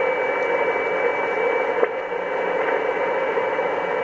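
HF amateur radio transceiver on the 20-metre band receiving band noise through its speaker: steady static hiss with a thin, high, steady whistle of a carrier on top, and one short click just under two seconds in.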